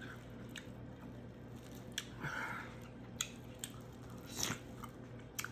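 Person chewing food close to the microphone, with scattered sharp wet mouth clicks and lip smacks and a couple of short noisy chews.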